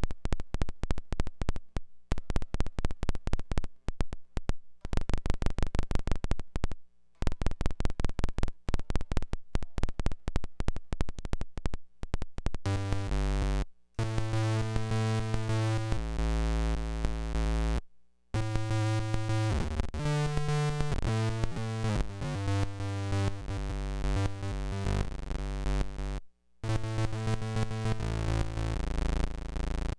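Hand-built circuit-bent noise guitar pedal, fed by an electric guitar, on its modulation settings alone: rapid trains of little clicks that stop and start. About halfway through they give way to glitchy, chip-like tones jumping quickly from pitch to pitch, cutting out briefly a few times.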